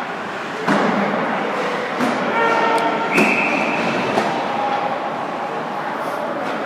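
Ice hockey rink noise: a sharp knock of puck or stick against the boards about 0.7 s in and another about three seconds in, players' shouts, and a short high referee's whistle blast just after three seconds.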